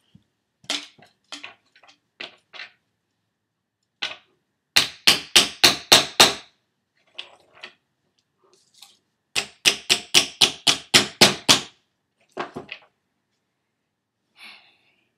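Hammer blows on a bent copper-tube antenna element to straighten the crooked shape: a few scattered strikes, then two quick runs of about seven and ten blows at roughly four to five a second, and a couple more near the end.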